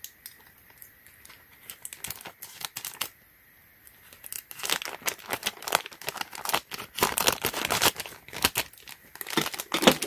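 Packaging being torn open and crinkled by hand: a few scattered crackles, a brief pause, then dense crinkling from about halfway through.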